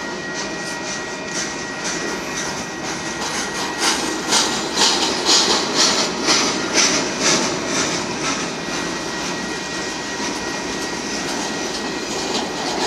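Union Pacific manifest freight train's autorack cars rolling past: a steady rumble of steel wheels on rail. In the middle comes a run of rhythmic clacks, about two a second, as the wheels cross rail joints. A thin steady high whine runs under it.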